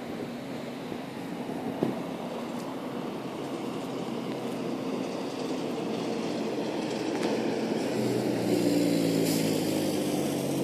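Road traffic noise that slowly grows louder as a lorry approaches; its engine's hum comes through near the end.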